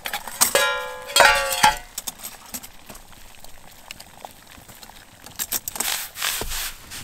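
Metal clinking with a ringing tone that lasts about a second near the start, then a short rustling hiss near the end.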